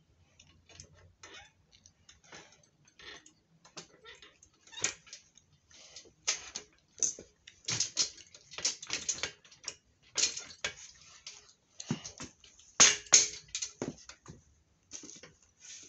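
Irregular light clicks and knocks, with a few sharper taps, from hand tools and metal parts being handled while a small workbench with a wooden top and metal legs is tightened up.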